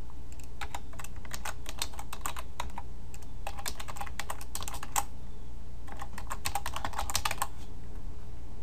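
Computer keyboard typing in three quick runs of keystrokes with short pauses between them, stopping near the end. A steady low hum runs underneath.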